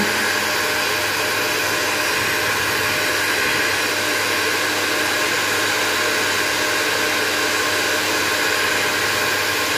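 Handheld Philips hair dryer running steadily while drying a dog's coat: an even rushing hiss with a faint steady whine, unbroken throughout.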